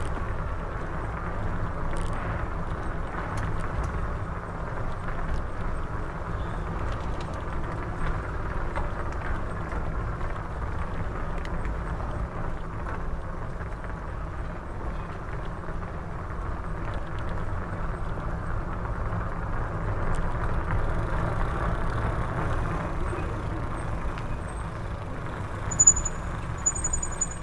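Steady rumble of a bicycle ride on city streets, with a brief high-pitched squeal near the end.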